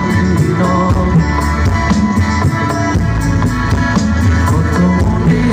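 Live band playing through the stage PA during a soundcheck, with drum kit and electric guitar over a steady beat and heavy bass.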